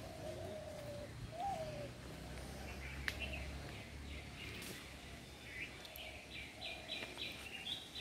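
Several wild birds calling in a plantation: a low, drawn-out call in the first two seconds and scattered high chirps, with a quick string of chirps near the end. A single sharp click about three seconds in.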